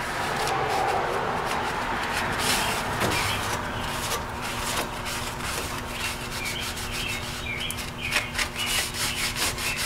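Paper shop towel rubbed over the plastic top of a car battery, dry-wiping off loose dirt: a continuous scrubbing rustle in uneven strokes.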